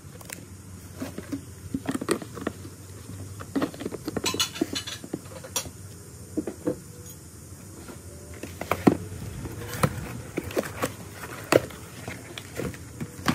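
Irregular taps, knocks and rustling from handling packaging: a cardboard gift box, a stacked set of bowls and paper wrapping being moved and opened, with a few sharper knocks in the second half.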